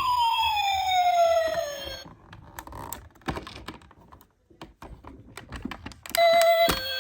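Ambulance siren wailing, its pitch sliding down, cutting off about two seconds in; then a few seconds of light scattered clicks and taps, and keyboard-like music notes start near the end.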